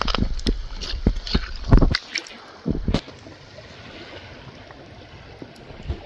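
Wet gurgling and dripping of water in tidal mud, with a run of knocks and low bumps over the first three seconds, then a steady low hiss.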